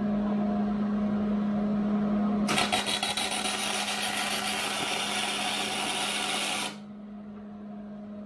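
Wire-feed MIG welder laying a tack weld on steel: the arc runs for about four seconds, starting about two and a half seconds in and cutting off suddenly, over a steady low hum.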